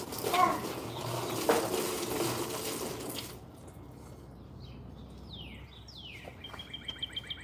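A cooking pot scooping and sloshing water out of a chest freezer for about three seconds, with a couple of sharp knocks of the pot. Then birds chirp, with a few falling calls and a quick run of chirps near the end.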